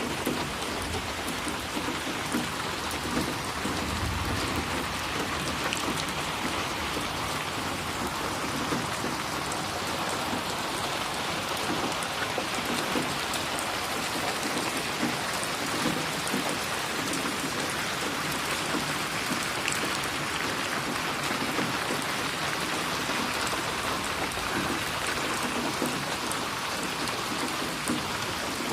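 Steady rain splashing on a surface: an even hiss with individual drops ticking through it.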